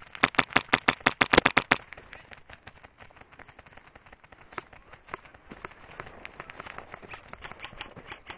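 Airsoft M4 rifle firing a quick string of shots, about eight a second, lasting under two seconds. Fainter, scattered airsoft shots follow for the rest of the time.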